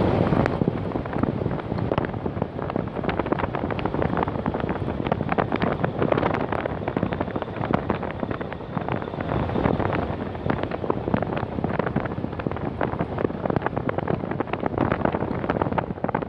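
Wind buffeting the microphone over the running noise of a vehicle driving a rough forest road, with a constant patter of small knocks and rattles from the bumpy surface.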